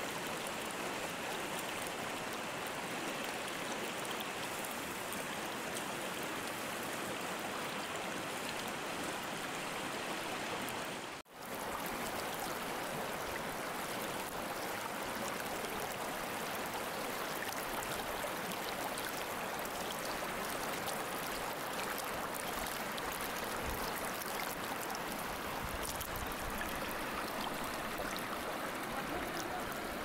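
Steady rush of flowing water, an even hiss that breaks off for an instant about eleven seconds in.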